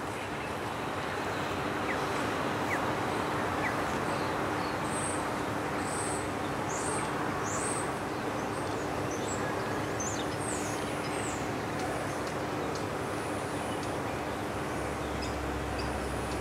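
Outdoor background noise during a moment of silence, with birds chirping from about five to eleven seconds in over a steady low hum.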